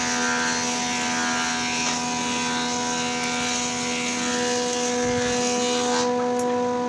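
A motor running steadily: a constant machine hum with a few fixed tones over an even whir, unchanging throughout.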